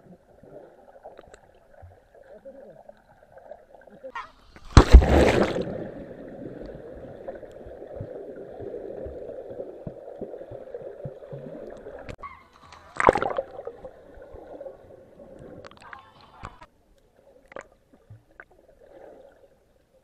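Muffled swimming-pool water heard from underwater as a person swims: a low, dull wash of moving water, broken by two loud splashes about five and thirteen seconds in.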